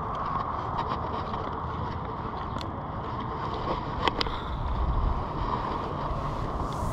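Steady wind noise on an action-camera microphone, with the low rumble swelling about halfway through, and a couple of sharp clicks.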